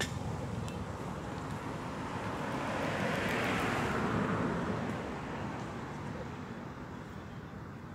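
A passing vehicle: a broad rushing noise that swells to a peak about three to four seconds in, then fades away.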